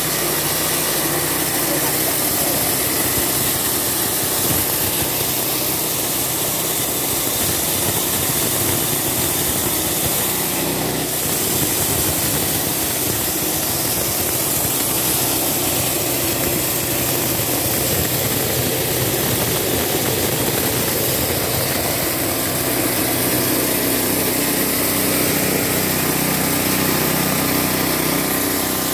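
Petrol-engine-driven feed chopper running steadily at constant speed, the engine note even throughout.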